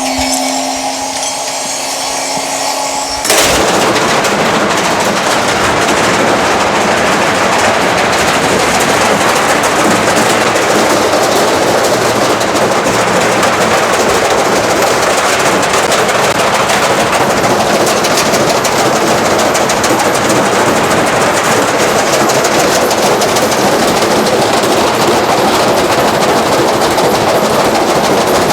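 Beko washing machine on a hard spin, self-destructing. About three seconds in, a steady hum gives way to a loud, continuous, rapid clatter of banging and rattling as the machine shakes itself apart.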